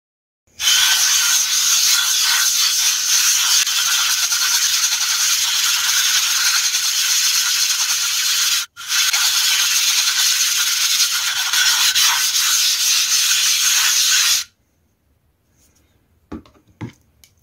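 Bar sharpening stone being lapped flat, rubbed round and round over a granite lapping plate in a wet abrasive-grit slurry: a loud, steady gritty scrubbing. It breaks off for an instant about halfway and stops a few seconds before the end, followed by two faint knocks.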